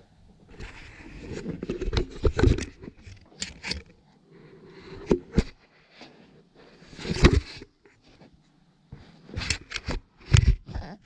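Handling noise from a small action camera being grabbed and handled by a baby's hands: irregular rubbing and scraping on the camera body, with several sharp knocks.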